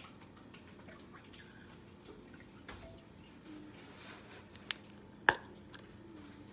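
Small ticks and clicks of containers being handled on a kitchen counter, with two sharp clicks close together a little past halfway, the second the louder.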